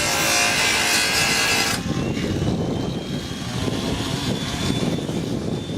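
Power tool running with a harsh hiss that cuts off suddenly about two seconds in, leaving a lower rumble with a faint thin whine.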